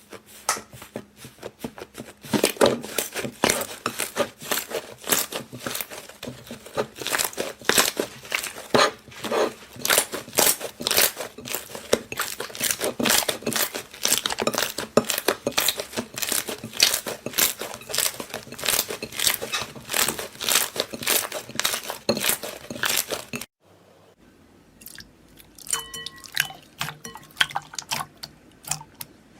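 Slime being squeezed and worked by hand, giving a dense, fast run of sharp clicks and pops. The sound cuts off suddenly a little over 23 seconds in, and after that only a few softer clicks remain.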